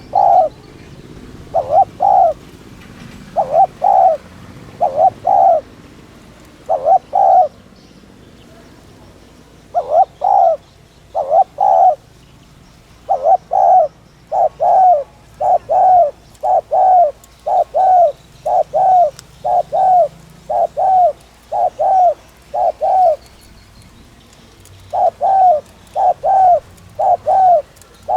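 Spotted dove cooing. It gives loud short coo notes about once a second in long runs, pausing briefly about a third of the way in and again near the end. This is the fast, urgent 'thúc' cooing that keepers play to stir decoy doves.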